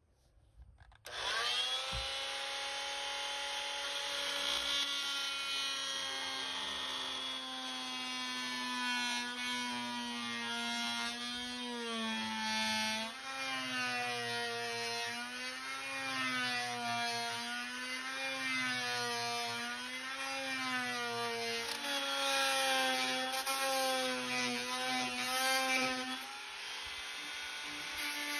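Corded handheld rotary tool starting up and cutting a square opening in a boat's dashboard: a high motor whine that holds steady at first, then dips and recovers in pitch over and over as the bit bites into the panel.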